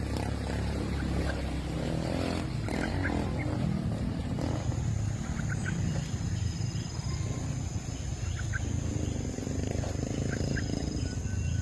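A steady low rumble with short high bird chirps, usually two or three at a time, scattered through. About four seconds in, a steady high insect trill starts and keeps going.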